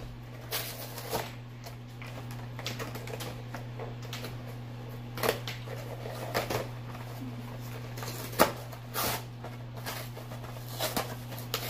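Hands opening a Pokémon trading card collector box: scattered taps, clicks and rustles of cardboard and packaging, a few louder crinkles about halfway through, over a steady low hum.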